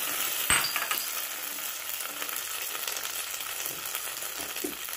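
Hot ghee tempering of cumin, pepper, cashews and curry leaves sizzling on freshly cooked pongal just after being poured on, a steady hiss with a single knock about half a second in.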